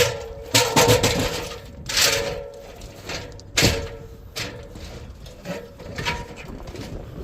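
A series of sharp knocks and scrapes, several in the first four seconds, then fainter and sparser.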